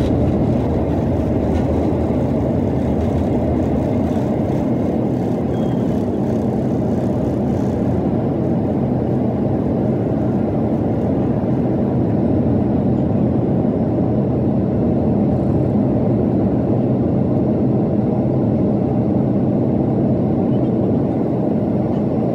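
Jet airliner's engines at takeoff power, heard from inside the passenger cabin as a steady, loud, low noise with rushing air, through the takeoff roll, liftoff and initial climb.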